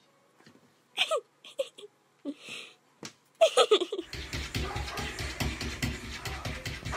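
A person laughing quietly in several short bursts. About four seconds in this gives way to a denser, steady background with a regular low pulse.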